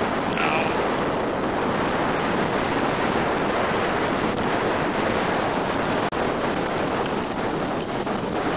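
Blizzard wind buffeting the microphone: a loud, steady rush of noise, briefly cut off about six seconds in.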